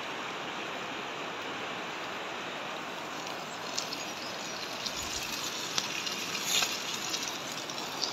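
Steady rushing of a mountain river flowing over stones, with a few light clicks in the second half.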